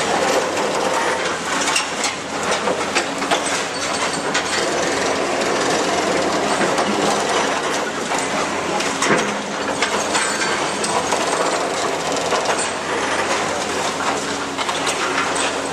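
Caterpillar demolition excavator working a hydraulic grapple into a concrete building: the engine runs steadily under a constant crunching and clattering of concrete breaking and rubble falling, with many sharp knocks.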